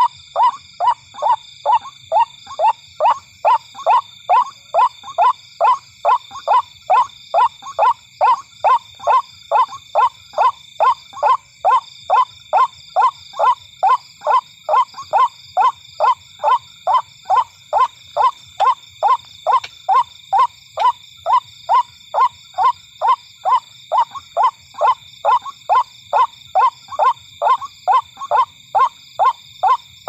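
White-breasted waterhen calling: a long unbroken series of short falling notes, a little over two a second, over a steady high shrill background.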